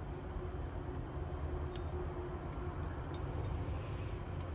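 Loose saw chain clinking faintly a couple of times as it is fed around a chainsaw bar, over a steady low rumble.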